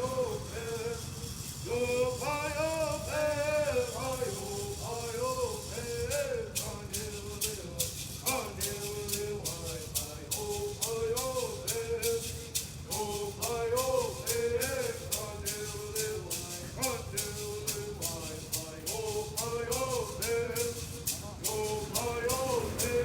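Kumeyaay bird songs: two men singing in unison, in short repeated phrases, to shaken gourd rattles. The rattles keep a steady, even beat from about six seconds in.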